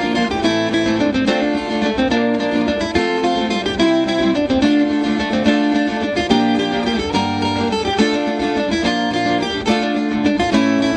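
Instrumental ringtone music: a plucked-string melody in a steady rhythm over a bass line.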